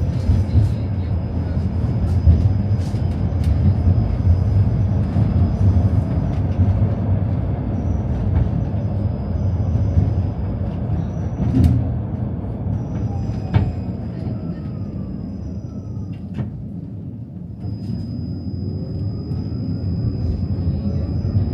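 Tram running along the rails: a steady low rumble with scattered clicks and knocks, a thin high steady whine, and faint gliding tones in the second half.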